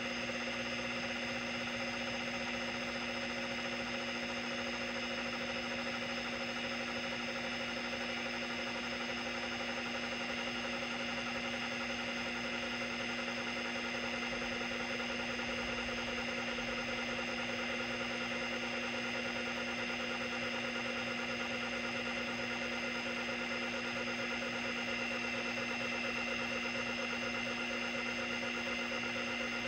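Seagate ST-212 MFM hard drive running with its cover off during a seek test: a steady spindle whine with several fixed tones, under the fast, even chatter of the stepper-motor actuator moving the heads across the tracks. The drive is ruined and can no longer store data.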